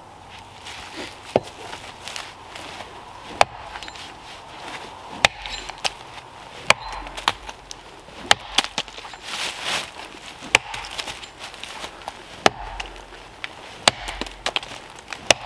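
Rinaldi Calabria axe, its cheeks freshly filed to a flatter profile, chopping into the trunk of a small standing tree: about a dozen sharp strikes at uneven intervals of one to two seconds.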